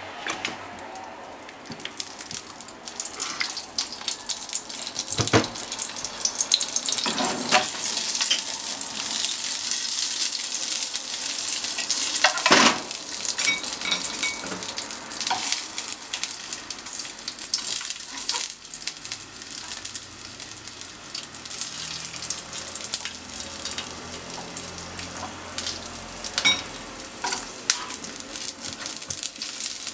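Small red sausages frying in oil in a nonstick frying pan: a steady sizzle that builds over the first couple of seconds, broken by sharp spattering pops, the loudest about twelve seconds in. Near the end chopsticks turn the sausages in the pan.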